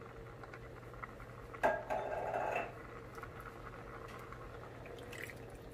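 A wooden spatula knocks once on the metal wok about a second and a half in, followed by about a second of scraping; then a few faint clicks over a low steady hum.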